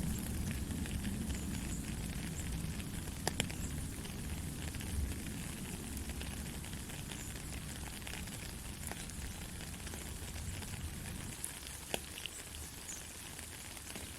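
Steady rain falling, an even hiss with a low rumble underneath and scattered taps of close drops, two sharper ones about a quarter of the way in and near the end.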